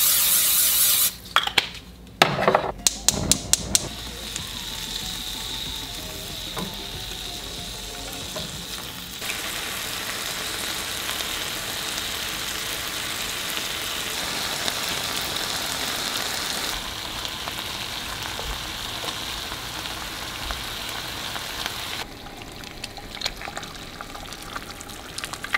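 Aerosol cooking spray hissing into a nonstick frying pan for about a second, then a few sharp clatters in the pan, then pre-cooked sliced sirloin sizzling steadily as it fries. Near the end the sizzle drops to a quieter frying of eggs in the pan.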